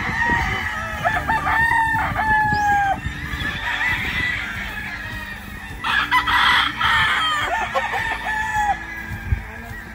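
Gamecocks crowing one after another, several long drawn-out crows that fall away at the end.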